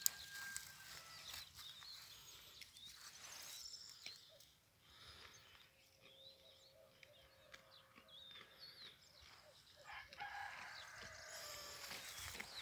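Faint distant chickens, with a long, level call in the middle, most likely a rooster crowing.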